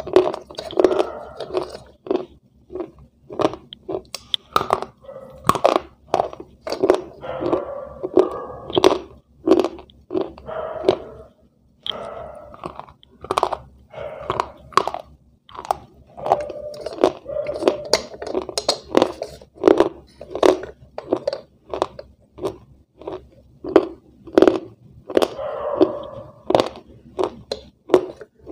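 A person crunching and chewing hard, brittle white pieces of food: sharp crunches, roughly one or two a second, broken by short pauses. Now and then there is the rustle of the bag as more pieces are taken.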